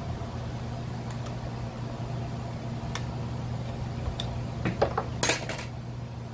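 Plastic engine cover of a brush cutter being worked loose and handled: a few sharp clicks, then a short burst of plastic-and-metal clatter about five seconds in, over a steady low hum.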